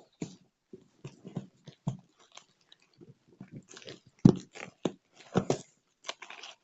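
Packaging being handled and torn open by hand: an irregular run of crackling and rustling with sharp clicks, the loudest crack about four seconds in.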